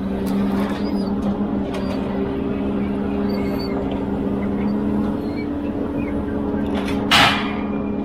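Ponsse Elephant forwarder's diesel engine running with a steady hum while its crane loads logs, with a brief loud burst of noise about seven seconds in.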